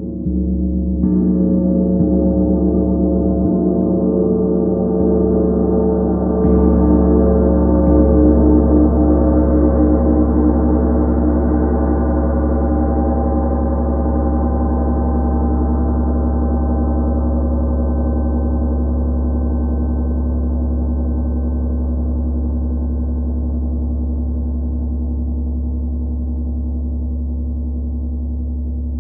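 32-inch Tree of Life gong struck with a soft mallet, about a second in and again around six seconds, then left to ring. It sustains as a dense stack of deep, shimmering tones that fades slowly.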